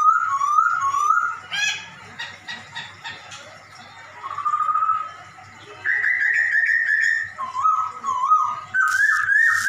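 Poksay Hongkong (hwamei) singing runs of short, swooping mewing notes that copy a cat's meow, one after another in phrases with brief pauses. There are a couple of sharp clicks among them.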